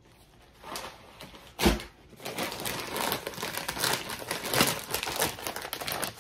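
Crinkly packaging being handled and crumpled, preceded by a single thump about a second and a half in.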